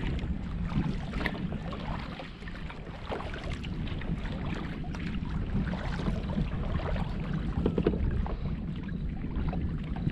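Water lapping and splashing against a moving kayak in many small, irregular splashes, over a low rumble of wind on the microphone.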